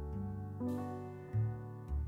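Background music: a gentle instrumental with plucked, guitar-like strings over a bass line, the notes changing every half second to a second.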